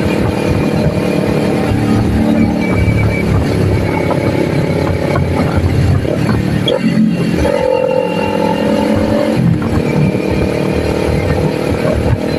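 Kawasaki Ninja 400's parallel-twin engine running under way on the road. There is a short break in the engine note about seven seconds in, then it carries on at a steady higher note.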